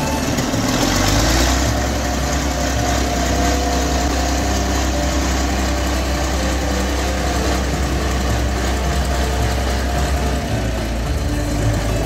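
International Harvester crawler tractor's engine running steadily as the crawler drives off a trailer ramp and moves away across a field, briefly louder about a second in.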